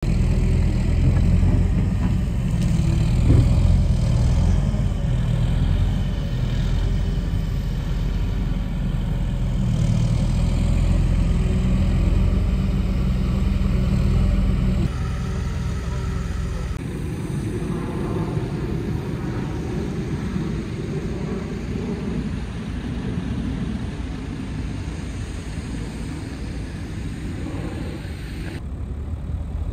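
Diesel engine of a Doosan wheeled excavator running steadily and loudly while it works a pile of soil. About fifteen seconds in, the heavy engine note drops away, leaving lighter, more distant site noise.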